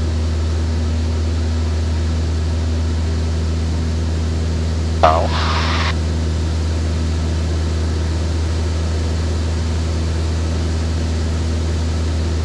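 Van's RV-7's piston engine and propeller droning steadily in cruise flight, heard inside the cockpit. About five seconds in there is a brief, sharper sound with a hiss of about a second over the drone.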